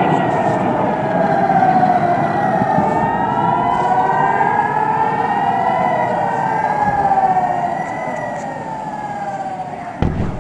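Air raid sirens wailing, several at once, each tone slowly rising and falling out of step with the others over a noisy background. The wail fades near the end, and a sudden thump comes just before it stops.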